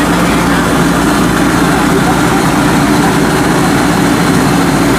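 Engine of a homemade tracked rice combine harvester running steadily at constant speed while the machine creeps forward onto a boat's deck.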